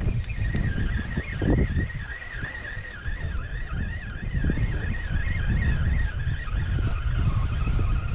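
Wind rumbling on the microphone over a moving boat on the water, with a thin high whine that wavers up and down several times a second and fades out near the end.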